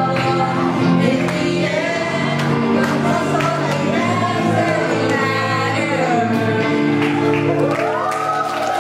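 A live band with electric guitar playing while a group of singers sings together into microphones.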